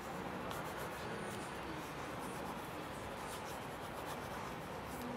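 Pen scratching faintly on a small paper notepad in short strokes as a quick sketch is drawn, over a steady background hiss.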